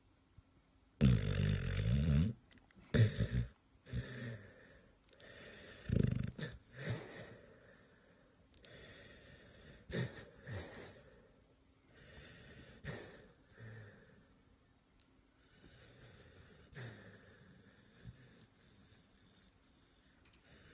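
Snoring in sleep: a long, loud snore about a second in, then irregular shorter, quieter snoring breaths every second or two, growing louder again near the end.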